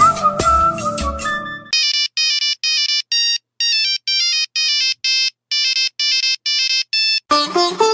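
Monophonic mobile-phone ringtone: a melody of short, clean electronic beeping notes with small gaps between them, in a few phrases. Before it the tail of a fuller piece of music fades out, and near the end music with plucked strings cuts in.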